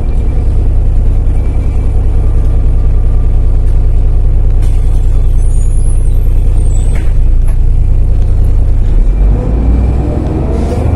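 Heuliez GX 127L city bus engine heard from inside the passenger cabin: a steady low idle drone while the bus stands. Near the end the engine note changes and begins to rise as the bus pulls away.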